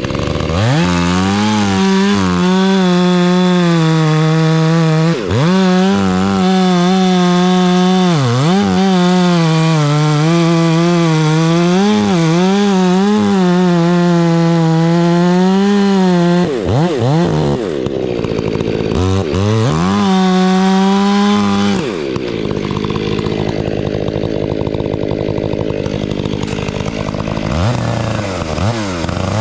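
Gas chainsaw cutting into a tree at high revs. Its engine note sags and picks back up several times as the chain loads in the wood. About two-thirds of the way through it drops to a lower, quieter running, then revs up again near the end.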